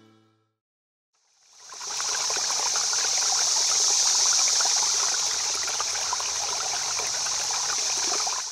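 Steady rushing of running water that fades in after a second of silence and stops near the end.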